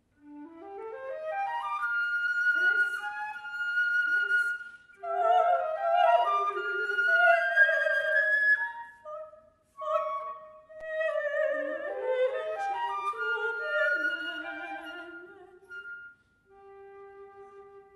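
Music: a classical-style melody with quick rising runs of notes, in phrases broken by short pauses.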